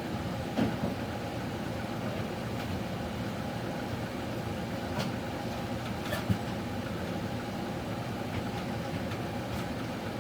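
Steady mechanical hum, with a few light knocks about half a second in and near six seconds.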